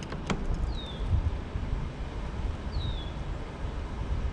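Wind rumbling on the microphone, with a sharp click right at the start and two short, high, falling chirps about two seconds apart.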